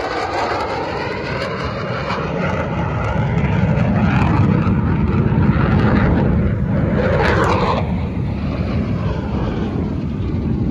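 Fighter jet passing overhead, its engine roar swelling to a peak midway and easing off, with a sweeping, phasing whoosh as it goes by.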